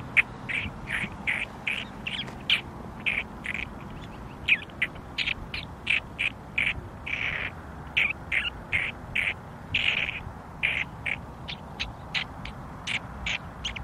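Prairie dog alarm barks: a steady series of short, high chirping barks, about two or three a second, with a few longer calls among them.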